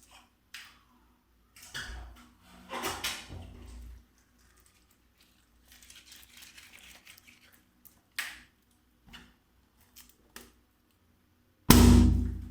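Scattered small knocks and rustles of handling, then a loud balloon pop near the end.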